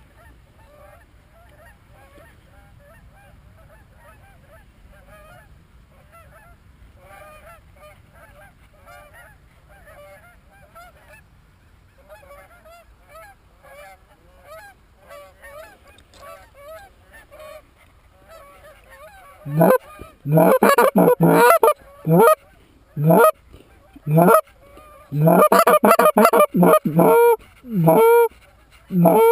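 Geese honking: a flock calling faintly and continuously at first, then very loud, close honks in quick clusters from about two-thirds of the way in.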